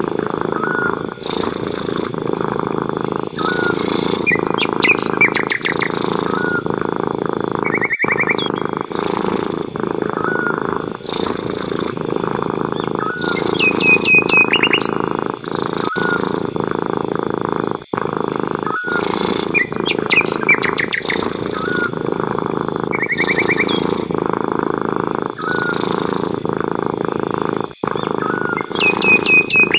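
Continuous cat purring, with short bird trills and chirps recurring every few seconds in a regular, looping pattern.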